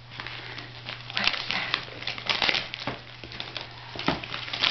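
Wrapping paper crinkling in several short bursts as a toddler's hands pull it off a present.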